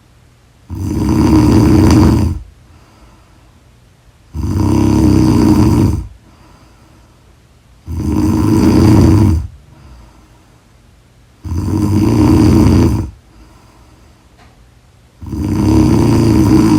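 A person snoring loudly in a steady rhythm. There are five long snores, each about a second and a half, coming about every three and a half seconds, with quiet breathing pauses between them.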